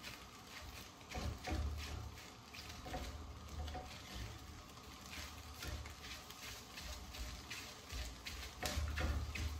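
Silicone spatula stirring and scraping matzo brei in a nonstick skillet, with irregular soft taps and knocks against the pan over a faint sizzle of frying egg.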